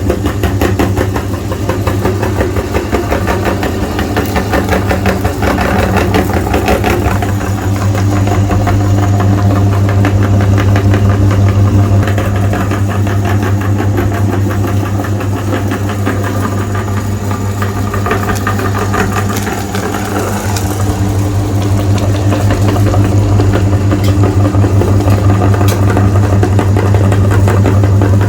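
Electric meat grinder running, a steady low motor hum with a fast rattling clatter from the grinding mechanism. It drops in level briefly about two-thirds of the way through, then picks up again.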